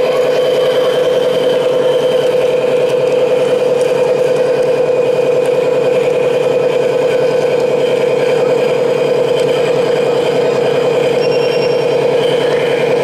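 Hydraulic pump of a large-scale radio-controlled Caterpillar excavator running with a loud, steady hum as the tracked model drives and slews.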